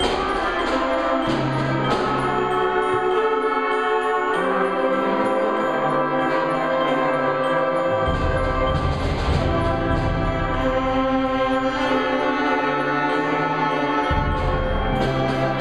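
Junior high concert band playing live: brass and woodwinds holding sustained chords that change every few seconds, punctuated by percussion strikes.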